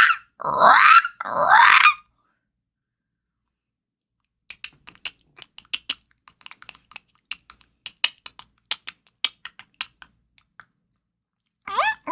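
A human voice imitating animals: harsh rising parrot squawks, then after a pause a long run of quiet, rapid clicking chitters for a rodent or raccoon, and near the end the first quick, high rising squeaks of a guinea pig.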